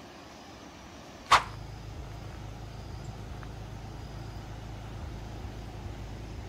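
A single sharp click a little over a second in, then a steady low vehicle-engine rumble.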